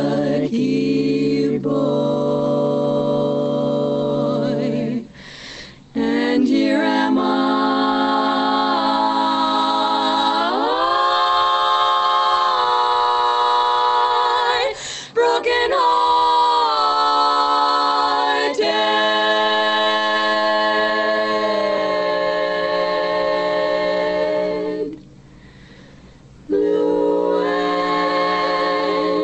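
Women's barbershop quartet singing a cappella in close four-part harmony, holding long ringing chords that move together, with two short pauses, about five and twenty-five seconds in. A recording played back over a video call.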